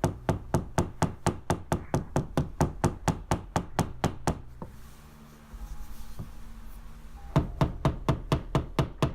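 Quick, light hammer taps driving fasteners flush into a drywall patch, about four strikes a second. They stop a little under halfway through, then start again near the end.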